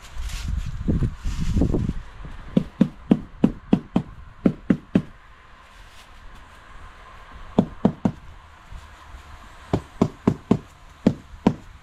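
A dense handling or rustling noise for the first two seconds, then runs of sharp knocks, about four a second, with a pause of a couple of seconds between the runs.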